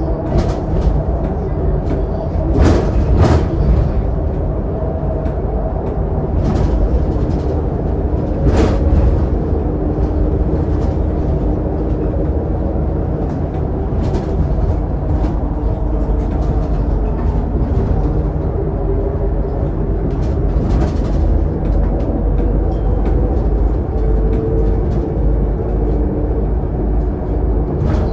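Scania K280UD double-decker bus running at a steady cruising speed, heard inside its lower-deck cabin: a constant low engine and road rumble with a faint steady hum from the drivetrain. Short body rattles or knocks come now and then, the loudest about three seconds in and again near nine seconds.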